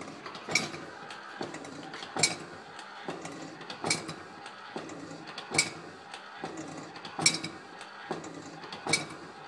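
Pistons of a steampunk jockeybox cycling: six sharp metallic clacks, evenly spaced about every 1.7 seconds, with softer knocks between them.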